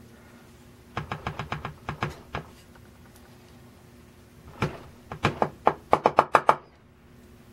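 Brass eurocylinder lock being tapped to shake its pins out of the chambers: two quick runs of sharp knocks, one about a second in and a faster one near the five-second mark.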